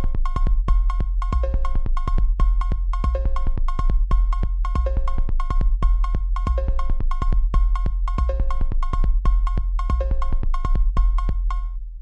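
Electronic ringtone tune: a short synth phrase looping just under every two seconds over a drum-machine beat and heavy low bass. It fades out near the end.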